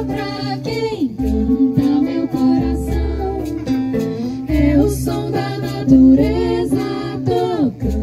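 Live acoustic folk music: women's voices singing a gliding melody over acoustic guitar, with a low sustained bass underneath.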